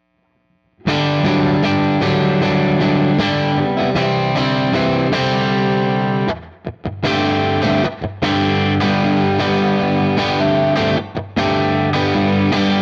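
Stratocaster electric guitar on the middle pickup playing a strummed rhythm part through a UAFX Lion amp emulator with reverb, with the Archer Clean boost pedal switched off. The playing starts about a second in, with two short breaks between chord phrases.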